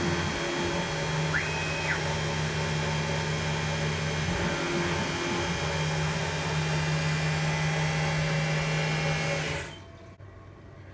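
Benchtop CNC mill (G0704 conversion) cutting an aluminium part with an end mill: steady spindle whine and cutting noise with a steady hum that dips briefly twice. The sound cuts off abruptly near the end.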